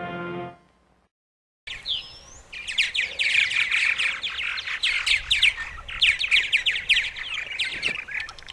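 Purple martins calling at their colony house: a dense, continuous chatter of rapid chirps and short warbles that starts after a brief silence. A bit of music fades out at the very start.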